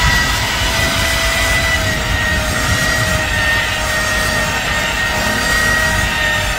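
Electric car polishing machine running steadily on the paint during compound rubbing, with a high whine over a low rumble; the whine drifts slightly in pitch as the pad is worked over the panel.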